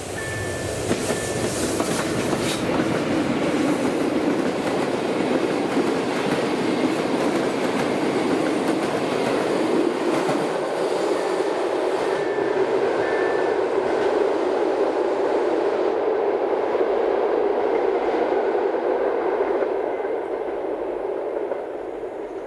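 A train passing over a single-track level crossing, with the rumble and clickety-clack of its wheels on the rails building within the first second, holding steady, then fading away near the end. The crossing's electronic warning signal beeps through the noise at the start and again about halfway through.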